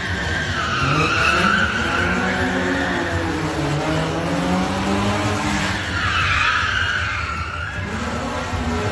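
BMW police car drifting: its tyres squeal in one long stretch at the start and again about six seconds in, over the engine revving up and down.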